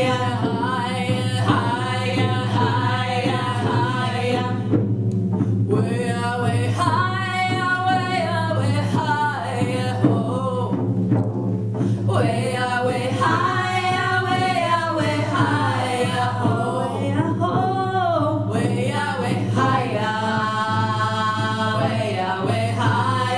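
A group of women singing a First Nations hand-drum song together, their phrases broken by short breaths, with frame hand drums beaten beneath the voices.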